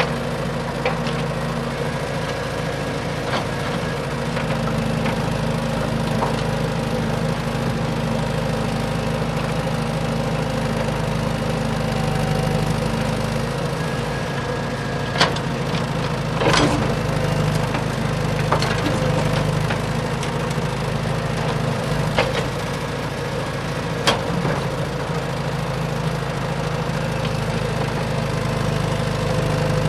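A small engine running steadily at an even speed, with a few sharp clicks or knocks over it.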